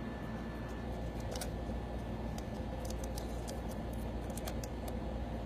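Faint, scattered small clicks and taps of a laptop screen panel being handled and pressed into its bezel, over a steady low hum.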